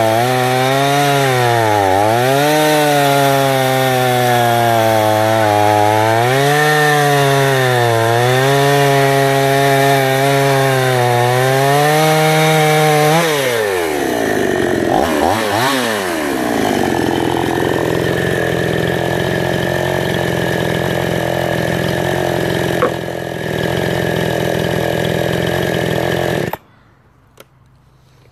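52cc two-stroke chainsaw running at high revs while cutting through a log, its pitch dipping and recovering as the chain loads in the wood. About halfway it drops back, sweeps up and down briefly, then settles to a steady idle and stops abruptly near the end.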